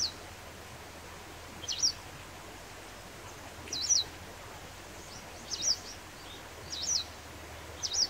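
White wagtail calling: short, high two-note chirps repeated about every two seconds.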